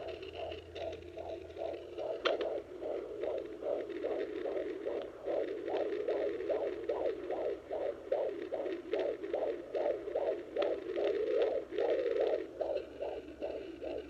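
Baby Doppler home fetal Doppler's speaker playing a 20-week fetus's heartbeat: a rapid, even pulsing beat of nearly three beats a second.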